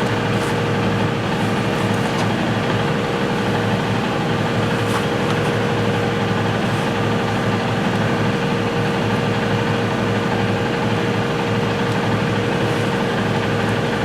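Steady machine hum with a constant mid-pitched tone, running unchanged throughout.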